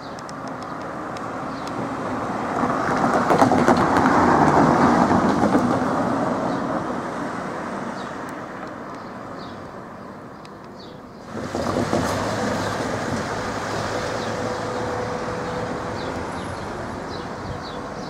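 A vehicle passing, building to a peak about four seconds in and fading away. About eleven seconds in, a louder steady rumble cuts in suddenly and carries on.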